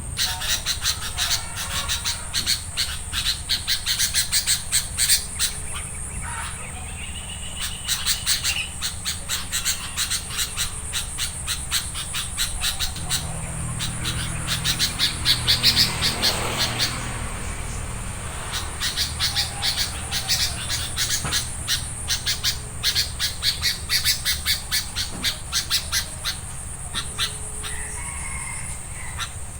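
Sooty-headed bulbuls calling in quick series of short, sharp notes over a steady high insect drone. A low rumble swells and fades around the middle.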